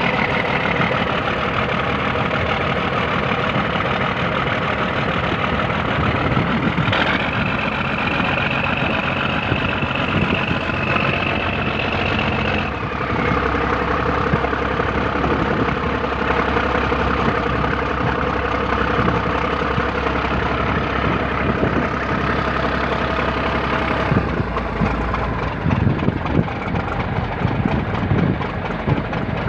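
Tugboat's diesel engine running steadily, its note shifting several times as the engine speed is changed while manoeuvring to come alongside a barge: a higher whine comes in about a quarter of the way through and stops near halfway, and the low drone changes again near the end.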